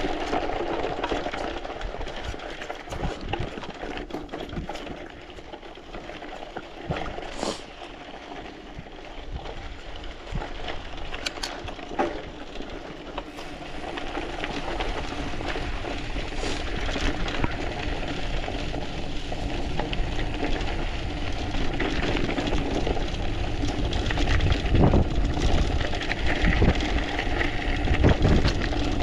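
Mountain bike rolling downhill on a dry dirt track: tyres crackling over loose stones and dead leaves, with frequent sharp clicks and knocks as the bike rattles over bumps. Wind rumble on the microphone, getting louder in the last few seconds as speed builds.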